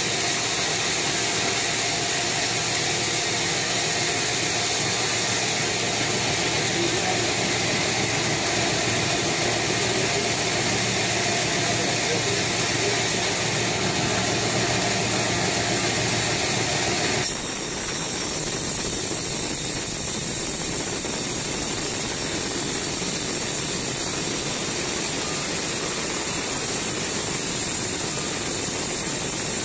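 Band sawmill running, its blade sawing lengthwise through a teak log with a steady mechanical noise. About 17 seconds in the sound changes and drops slightly, then runs on steadily.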